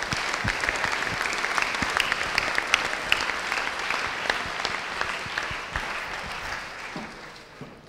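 Audience applauding: dense clapping from a large crowd that slowly dies away near the end.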